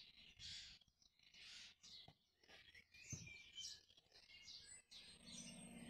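Near silence, with faint, brief high-pitched chirps scattered through it.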